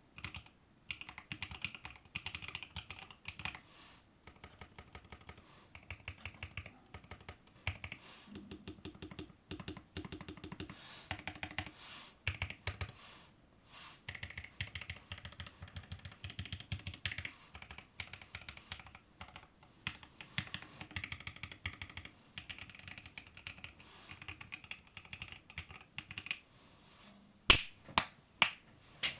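Typing on a Fuji65 mechanical keyboard with lubed Alpaca v2 linear switches on a carbon fiber plate: a fast, uneven run of keystrokes in bursts. Near the end come three much louder, sharp clacks.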